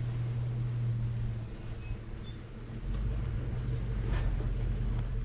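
Chevrolet Avalanche pickup's engine running as the truck crawls slowly along a gravel trail, a steady low hum that shifts to a deeper note about three seconds in.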